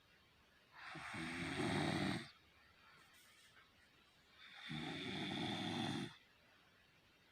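A heavyset man snoring in his sleep: two long snores, each lasting over a second, about a second in and near the end, with quiet breathing gaps between.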